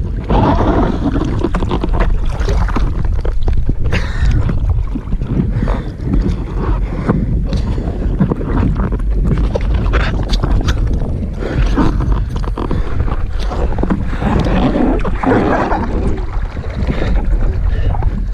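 Wind buffeting the microphone of a camera on an inflatable stand-up paddleboard, a steady low rumble, with choppy lake water slapping and splashing irregularly against the board.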